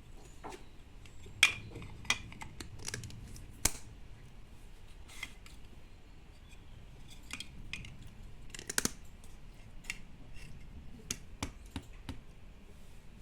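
Plastic toys being handled: irregular light clicks and clacks, with two sharper knocks in the first four seconds.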